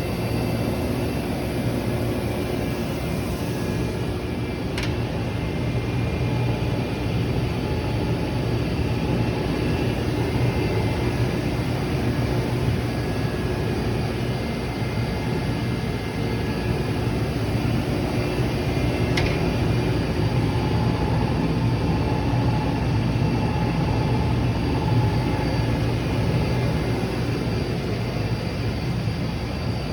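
Union BFP130 CNC floor-type horizontal boring mill running under power: a steady machine hum with several constant tones. Two sharp clicks come about 5 and 19 seconds in.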